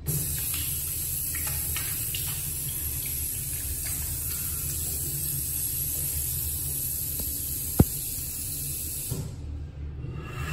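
Bradley WashBar sensor faucet running a steady stream of water into the sink, stopping about a second before the end. A single sharp click about three-quarters of the way through.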